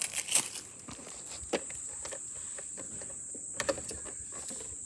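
A few scattered light clicks and knocks of robot vacuum parts and packaging being handled during the unboxing, over a steady high-pitched whine.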